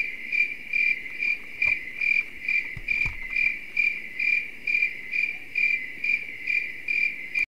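Insect chirping in a steady rhythm, about two and a half high-pitched chirps a second, cutting off suddenly near the end.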